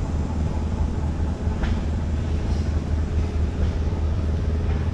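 Steady low engine rumble of a running vehicle, even in level throughout.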